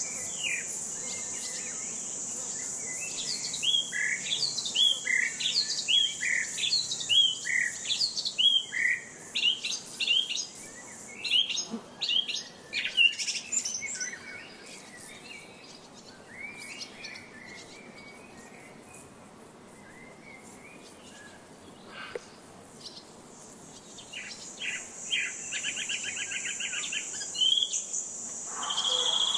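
Songbirds chirping in quick repeated calls, with a fast trill later on, over a steady high insect drone such as crickets. The drone fades out partway through and returns near the end.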